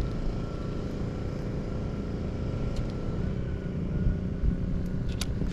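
Steady low hum of a running motor, like a vehicle engine, with a couple of sharp clicks near the end.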